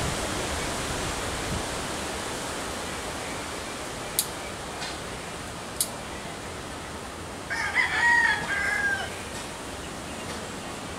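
A rooster crows once, a single crow of about a second and a half about two-thirds of the way through, over a steady hiss. Two short, sharp clicks come a few seconds before it.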